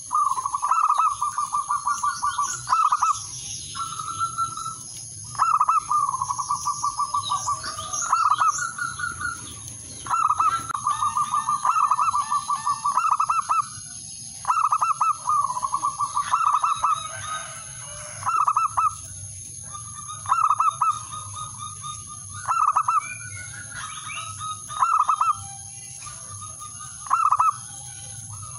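Male zebra dove (perkutut) cooing in repeated bouts of rapid staccato notes, each bout lasting from a fraction of a second to about two seconds. The calls are the longer territorial song a male uses to call a rival.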